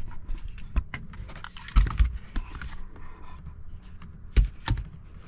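Handling noise: a scattered run of clicks and knocks, with louder thumps about two seconds in and again about four and a half seconds in.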